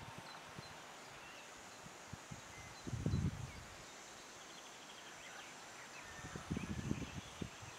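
Quiet outdoor ambience: a few faint, short bird chirps over a steady hiss, with gusts of wind buffeting the microphone about three seconds in and again near the end.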